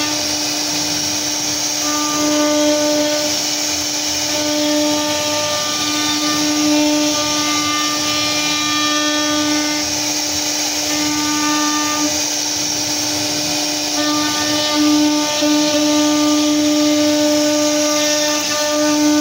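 CNC router spindle running steadily as its bit carves relief into a wooden panel: a constant whine with a hiss of cutting wood, its upper tones fading in and out as the cut goes on.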